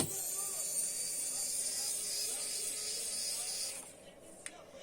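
Compressed air blowing in one steady, high hiss of nearly four seconds, beginning with a sharp click and cutting off abruptly, followed by a faint click.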